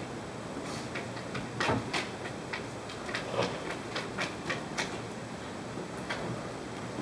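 Steady hiss with scattered short clicks and ticks, and a man's voice faint and indistinct beneath it.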